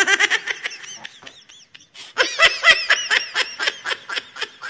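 High-pitched, rapid giggling laughter in two bursts, the second starting about two seconds in.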